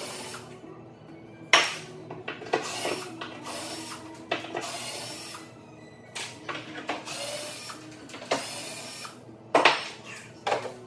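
Cordless drill run in several short bursts, backing screws out of the underside of a wooden tabletop, with a couple of sharp knocks of wood.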